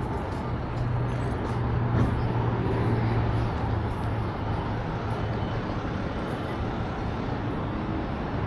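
Steady motor-vehicle and road noise with a low engine hum.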